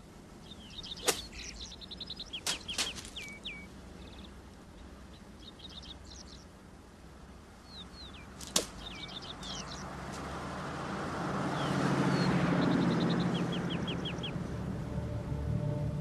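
Songbirds chirping and trilling, with a few sharp clicks. From about ten seconds in, a low swell of sound builds and grows louder.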